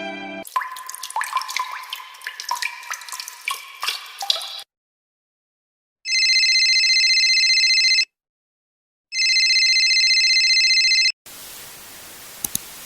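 A run of quick plinks and short tones for about four seconds, then, after a pause, an electric bell rings in two bursts of about two seconds each, a second apart. A steady hiss with a few clicks comes in near the end.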